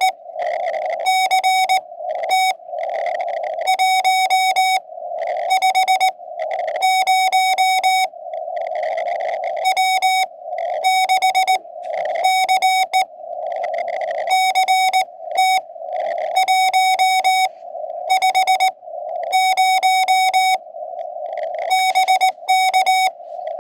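Morse code (CW) on a QRP ham radio transceiver: a single steady-pitched tone keyed on and off in quick dits and dahs, in runs of a second or so. Between the runs there are stretches of hiss through the radio's narrow receive filter, as in a back-and-forth CW contact.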